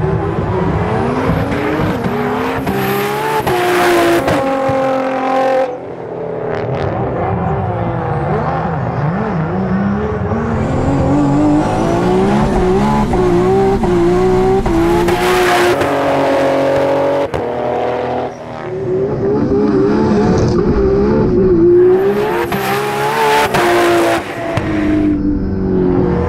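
Turbocharged RB32 inline-six of an R32 Skyline GT-R with a sequential gearbox, accelerating hard. Its pitch climbs through each gear and drops back at each quick shift, over several full-throttle runs.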